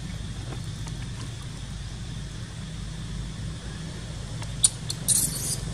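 A steady low motor-like drone throughout; near the end, a few short, high-pitched squeaks from the baby monkey.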